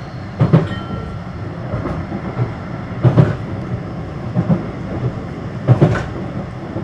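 Blackpool tram running at speed, heard from inside the car: a steady rumble with a loud clack from the wheels on the track about every two and a half seconds.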